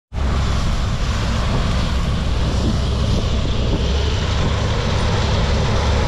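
John Deere 9670 combine running steadily under harvest load, a continuous deep engine hum under a dense whir of threshing machinery.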